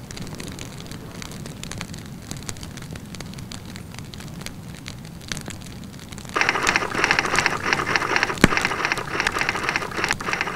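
Wood fire crackling in a wood-fired dome oven: a steady hiss scattered with many small pops. About six seconds in the hiss grows clearly louder.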